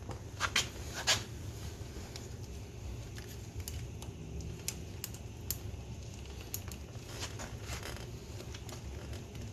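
Scattered light clicks and scrapes of tools and parts being handled while working on an ATV, the loudest about a second in, over a steady low hum.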